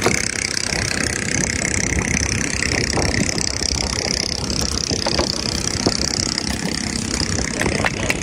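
A boat engine running steadily close by, with a few sharp knocks over it.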